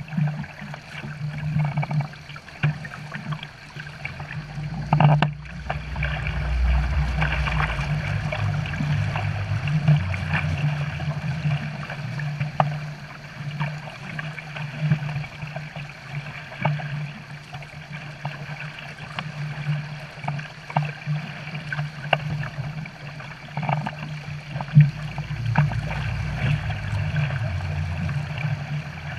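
Wake water churning and splashing under a towed boat, over the steady low drone of a boat engine.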